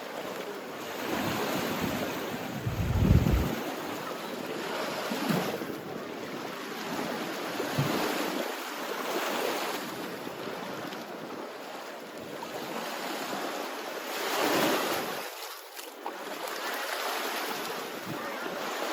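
Sea waves breaking and washing up the shore in repeated swells, with wind buffeting the microphone. The buffeting is loudest about three seconds in.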